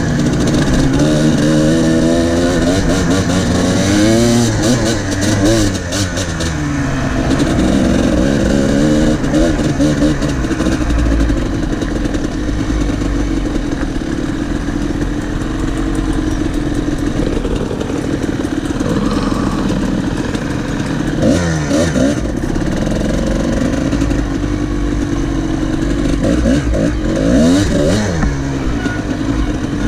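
Kawasaki KDX two-stroke dirt bike engine being ridden. Its pitch rises and falls again and again with the throttle.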